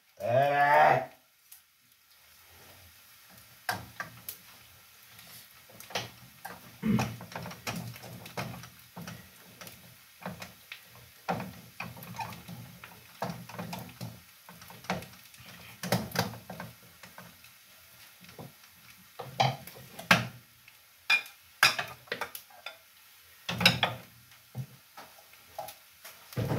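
A wooden spoon knocking and scraping in a metal cooking pot as stiff ugali is stirred and scooped out, in irregular sharp knocks.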